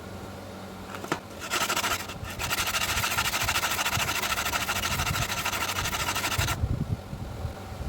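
Meat-mincer cutter steel being ground on a running sharpening machine. A steady motor hum, then a loud hissing grind of metal against the abrasive starts about a second and a half in, eases briefly, and cuts off sharply near the end.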